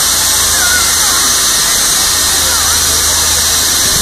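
Loud steady hiss of a water-mist cannon spraying, over a low hum, with a few faint short squealing glides above it.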